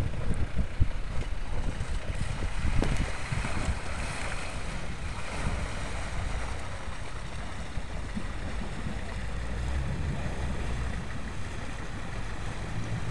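Water churning and splashing as an off-road 4x4 wades through a river ford, with wind buffeting the microphone in low thumps during the first few seconds.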